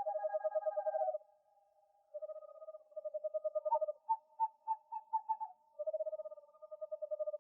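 Owl calls: three runs of fast trilled hooting on one steady pitch, with a series of about eight separate, slightly higher hoots in the middle.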